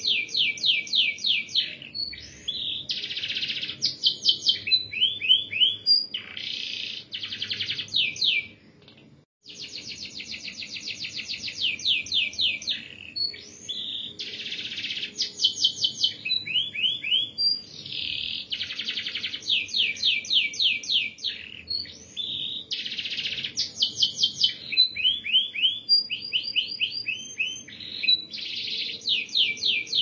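Domestic canary singing a continuous song of long, fast rolling trills and sharp rapid repeated notes, phrase after phrase, with one short break about nine seconds in.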